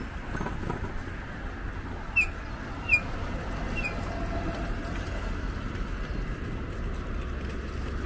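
Street ambience with a steady low rumble of traffic, and three short high chirps about two to four seconds in.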